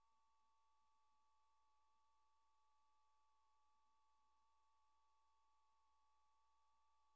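Near silence: only a very faint steady two-note electronic hum, with no sound from the picture.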